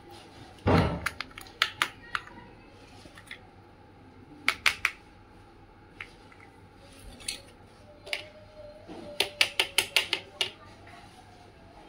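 Small plastic toy kitchen pieces clicking and tapping as they are opened, handled and set down on a hard tabletop. There is a cluster of clicks about a second in, a few more midway, and a quick run of about eight clicks near the end.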